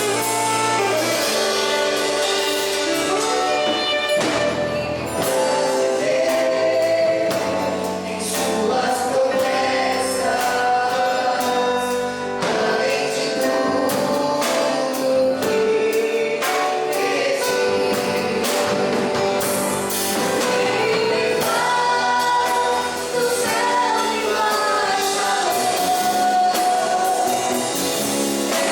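Gospel worship music: voices singing together in sustained, held notes over instrumental accompaniment with a steady beat.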